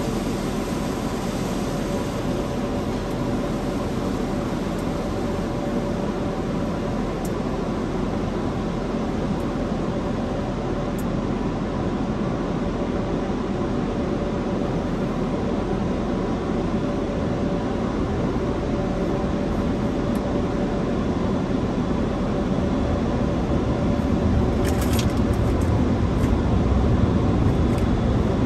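Conveyor car wash tunnel equipment running steadily: an even rushing noise with a faint steady hum. A low rumble grows stronger near the end, with a few brief ticks.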